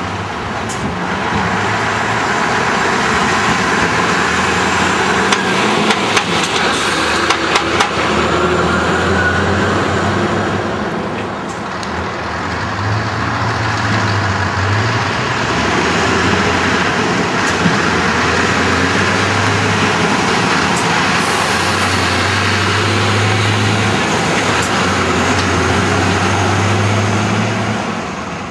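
Diesel engines of loaded Scania timber lorries running as they move off and pull away. The engine note rises and drops several times.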